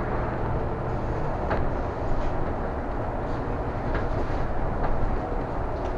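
City bus in motion, heard from inside: a steady low rumble of engine and road, with a few light rattles and clicks from the body here and there.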